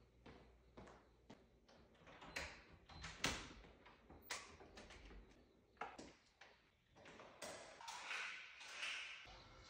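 Footsteps in sneakers on a hard floor and a door being handled, with the sharpest knocks about three and four seconds in, then a rougher scraping and rustling stretch near the end.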